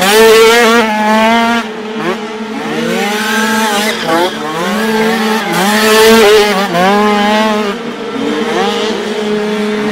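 Several 49cc prototype dirt bikes racing past, their small engines revving up and down in quick rising and falling sweeps, loudest as bikes pass close about half a second in and again about six seconds in. A steady engine drone runs underneath.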